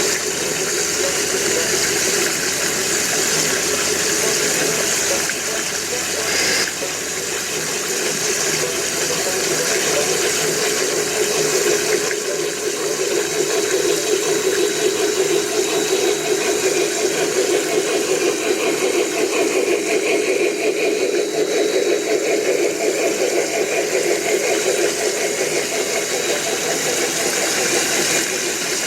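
Water from a small pumped artificial stream on a garden railway, pouring and rushing steadily as a sheet down the stream bed. There is a brief change in the sound about six and a half seconds in.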